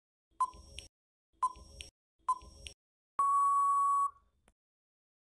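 Countdown timer sound effect: three short beeps about a second apart, then one longer steady beep of about a second as time runs out.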